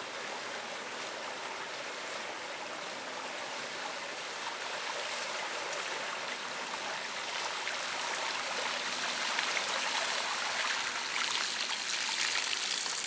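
Fraser River floodwater running over a flooded trail, a steady rush of water that grows a little louder toward the end.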